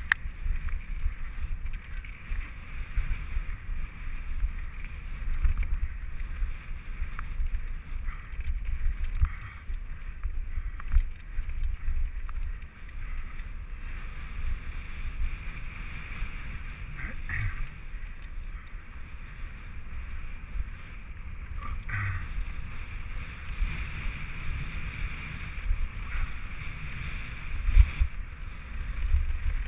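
Mountain bike rolling fast down a dirt forest singletrack: wind buffeting the on-bike camera's microphone over the rumble and rattle of tyres and frame on the trail. There are a couple of sharp clicks midway and a heavy thump near the end.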